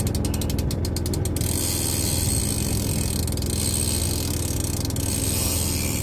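Fishing reel ratcheting under the load of a hooked fish, with rapid clicks through the first second and a half. A steady low hum runs underneath throughout.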